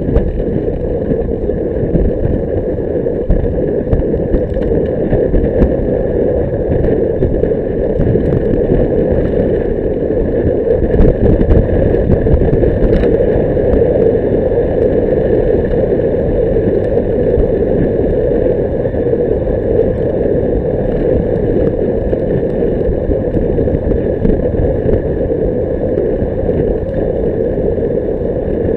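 Steady, muffled rush of wind and road noise on a bicycle-mounted action camera's microphone while riding at speed.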